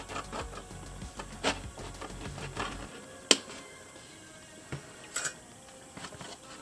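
Clicks and crinkles of a doll's plastic packaging being handled and freed, with one sharp snap about three seconds in and two more a couple of seconds later, over soft background music.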